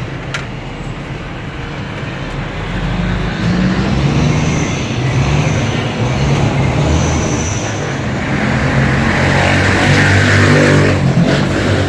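A motor vehicle engine running, getting louder partway through, with its pitch falling near the end.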